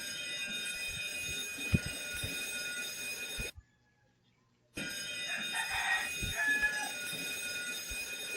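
Ship's electric alarm bell ringing: one long ring of about three and a half seconds, a pause of about a second, then a second long ring.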